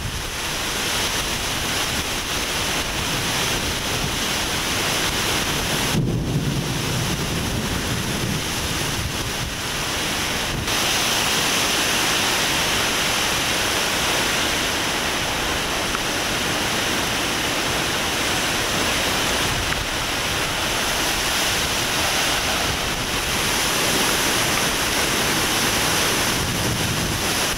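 Thunderstorm downburst: a steady, loud rush of wind-driven torrential rain, with gusts buffeting the microphone in a low rumble.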